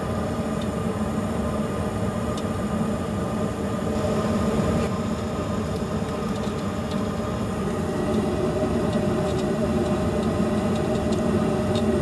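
Trane S9V2 gas furnace running steadily at high fire, a constant hum of its fans and burners with a few faint ticks.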